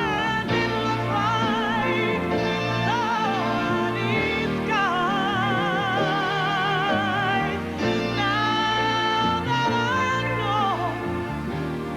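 A woman's high, wordless singing with wide vibrato over instrumental accompaniment: long held notes, with glides between them.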